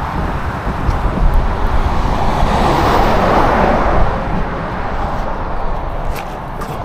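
A car passing on the road over steady traffic noise. It rises to its loudest about halfway through, then fades. A few faint clicks come near the end.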